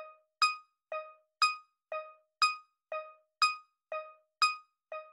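Electronic tick-tock sound effect: short, quickly fading keyboard-like notes alternating between a higher and a lower pitch, two a second, counting off thinking time for the question just posed.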